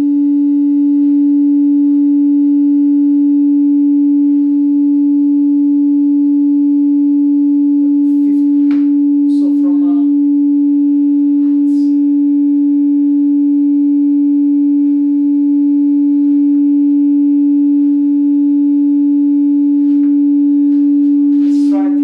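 A steady 287 Hz sine test tone from a signal-generator app, played through a studio monitor at a constant level, with faint overtones above it. It is a test signal for measuring a room resonance at that frequency and how much a tuned Helmholtz absorber panel reduces it.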